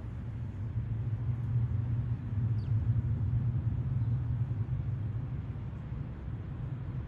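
Low, steady rumble of a nearby motor vehicle's engine, swelling over the first couple of seconds and slowly easing off.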